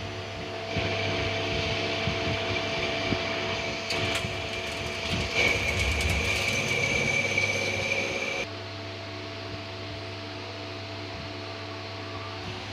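CNC lathe running with a steady hum. About a second in, louder machining noise starts, with a high steady whine that grows stronger midway. After about eight seconds it cuts off abruptly, leaving the hum.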